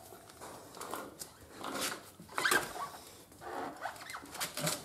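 Faint, scattered clicks, scrapes and rattles as a motorcycle's spoked rear wheel and drive chain are moved by hand while the wheel is worked out of the swingarm.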